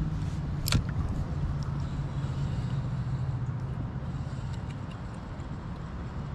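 Steady low rumble of road traffic, with one sharp click just under a second in.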